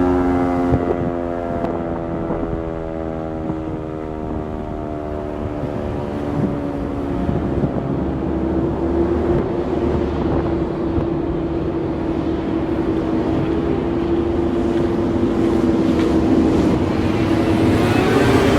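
Sentry 14V-B outdoor warning siren sounding the attack signal, a rise-and-fall wail. Its pitch drops over the first couple of seconds, holds lower, then climbs and grows louder near the end. Wind buffets the microphone throughout.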